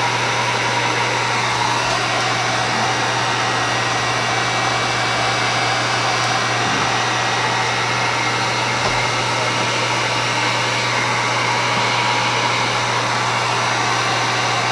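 Electric heat gun running steadily: a constant rush of blown air over a low, even motor hum, used here to heat freshly poured epoxy resin.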